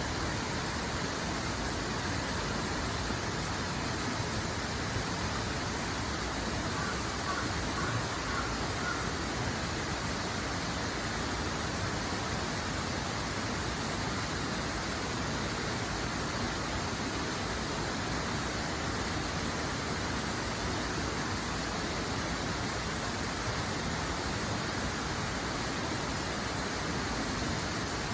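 Running water, a steady, even rush with no change in level. A few short bird calls come through faintly about seven seconds in.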